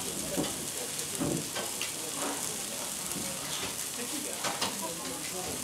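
Tajima beef fillet and vegetables sizzling on a steel teppanyaki griddle, a steady hiss with a few light clicks and scrapes of a knife and carving fork against the steel.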